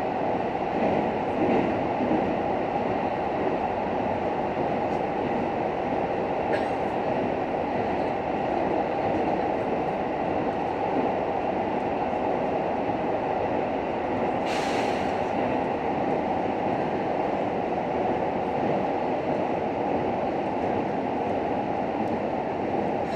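JR Hokkaido H100 series diesel-electric railcar running along the line, heard from inside the passenger cabin: a steady rolling rumble of wheels on rail. A single sharp click is heard about two-thirds of the way through.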